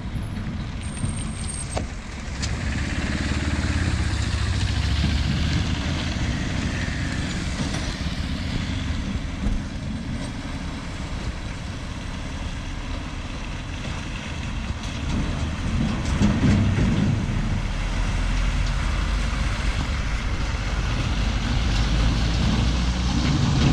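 Motor vehicle traffic running on a rough, unpaved, potholed highway, a continuous engine rumble that swells louder a few times as vehicles pass.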